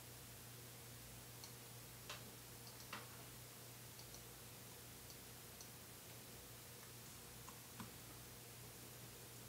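Near silence: a steady faint electrical hum with a few soft clicks, from a mouse and keyboard being used at a computer.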